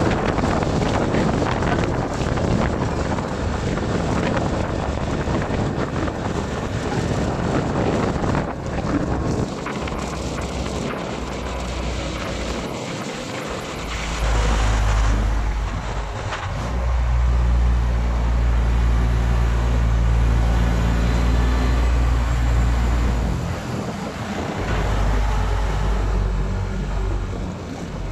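Wind rushing over the microphone of a moving vehicle, with the vehicle's engine running at road speed. The wind noise is strongest at first. From about halfway a steady low engine hum comes through more plainly.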